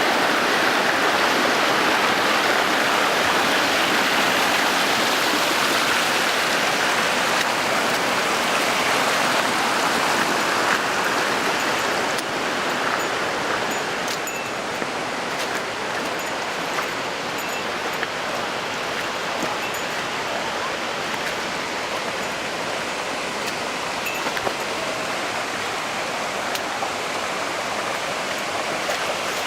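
Waterfall rushing steadily, the twin falls of Ane-daki and Imouto-daki pouring into a plunge pool; the level drops slightly about twelve seconds in.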